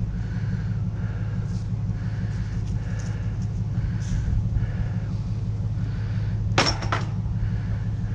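A sharp clink of hard objects striking, about six and a half seconds in, over a steady low rumble.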